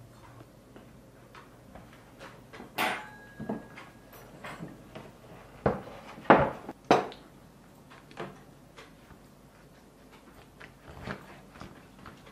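Scattered knocks and clinks of a knife, fork, plates and glasses on a wooden serving board and a dinner table as roast chicken is cut and served, with the loudest pair of knocks a little past the middle.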